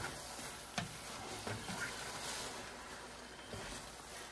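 Faint, steady hiss of food simmering in pots on the stove, with a few light clicks of a utensil against a pot.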